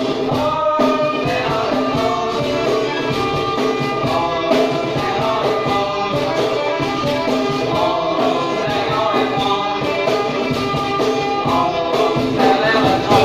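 Music: a song with singing over instruments.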